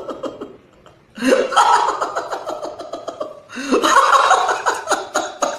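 A man's loud, exaggerated laugh-crying in two long, pulsing bouts, the first starting about a second in and the second just past the middle.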